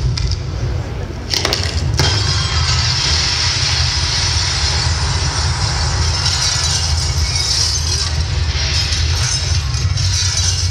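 Show soundtrack sound effect of glass cracking and shattering, played loud to match the projected façade breaking apart. A couple of sharp cracks come about one and a half and two seconds in, then a long shower of falling shards follows over a steady deep rumble.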